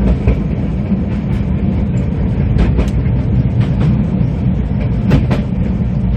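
A small tourist forest train rolling along its track, heard from aboard: a steady low rumble of wheels and carriage, with a few sharp clicks or squeaks around the middle and again near the end.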